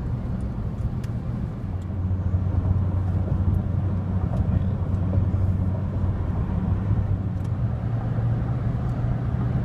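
Steady road and engine noise inside a moving car's cabin at highway speed: a low hum over tyre rumble, a little louder from about two seconds in.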